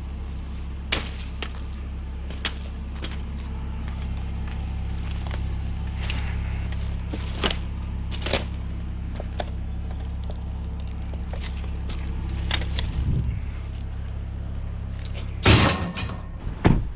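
Vehicle engine running steadily, with scattered sharp knocks and rattles. Near the end comes a loud clatter, and the engine hum stops.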